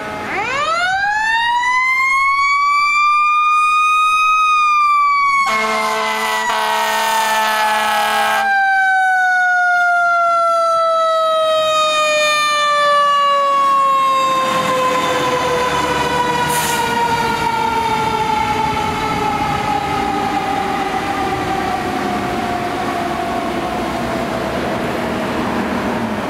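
Fire engine's mechanical siren winding up to a peak over about four seconds, then coasting slowly down in pitch for the rest of the time. A steady air horn blast of about three seconds sounds a couple of seconds after the peak.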